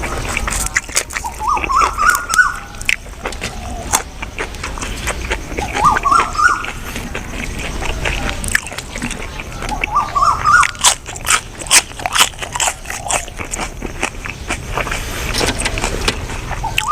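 A person chewing a mouthful of buffalo-meat larb loudly with wet smacks and clicks of the lips and tongue. A short rising whine recurs about every four seconds, four times.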